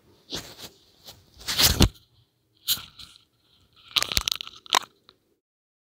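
Crunching and crackling in four short bursts, the loudest just before two seconds in, ending about five seconds in.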